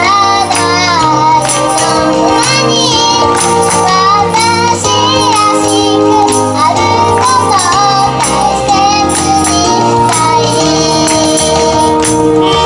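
A young girl singing a pop song live over a recorded backing track with a steady beat.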